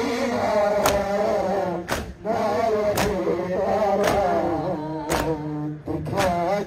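Male voices chanting a noha, a Shia mourning lament, in unison. A crowd's chest-beating matam lands in time with it as a sharp slap about once a second.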